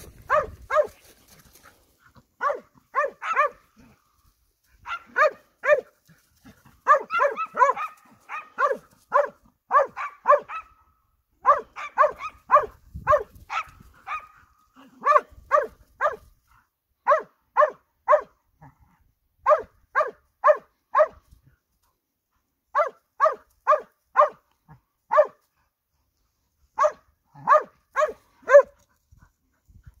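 Scent hound baying a wild boar at close range: repeated sharp barks in quick runs of two to five, with short pauses between runs.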